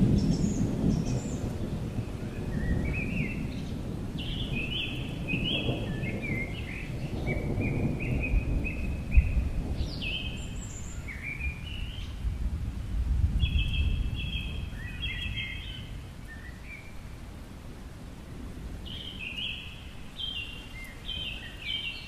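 Rain falling with deep, rolling rumbles of thunder that swell several times and die down in the second half. Birds sing runs of short, repeated chirping notes that step up and down in pitch throughout.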